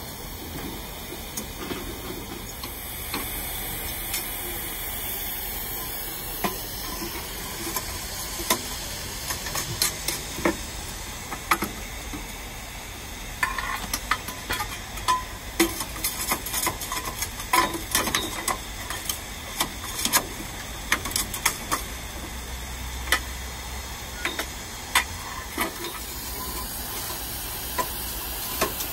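Steam hissing steadily from a small narrow-gauge steam locomotive, with a scatter of sharp clicks and ticks from about a third of the way in.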